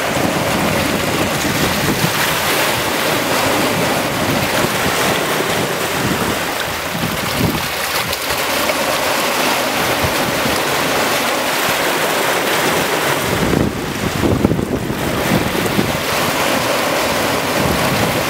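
Open-ocean waves rushing and splashing past the hull of an RM 8.90 sailing yacht under way, with wind buffeting the microphone in irregular gusts.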